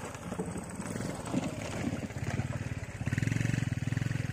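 Small underbone motorcycle engines running at low speed on a muddy peat track, with a steady putting rhythm. One bike passes close at the start, and a second grows louder as it approaches about three seconds in.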